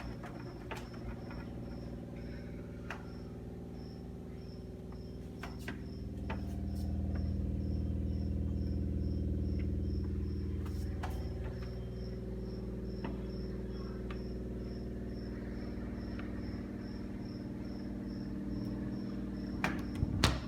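SHARP SJ-PD58V-BK refrigerator running with a steady low hum, which swells louder for a few seconds partway through, over scattered small ticks and rattles. A few loud knocks come near the end. It is the sound of the fridge trembling, a fault in a fridge less than a month old.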